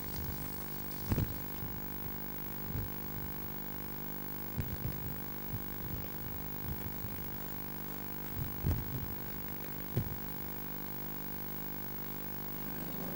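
Steady electrical hum made of several fixed tones, with a few scattered dull low thumps.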